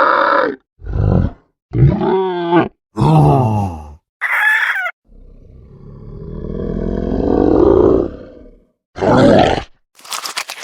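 Monster sound effects played one after another: about eight short growls and cries, each a second or less and separated by silence, one of them high and shrill. In the middle a longer roar swells for about three seconds. Near the end comes a crackling rattle.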